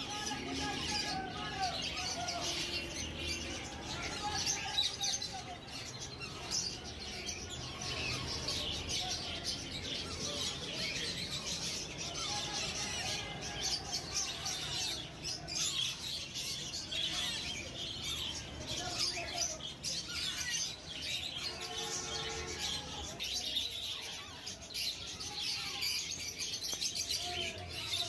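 A brood of Alexandrine parakeet chicks calling and chirping continuously, many voices overlapping: begging calls at hand-feeding time.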